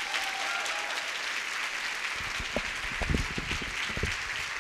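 A large audience applauding steadily after a speech ends, with a few dull low thumps about halfway through.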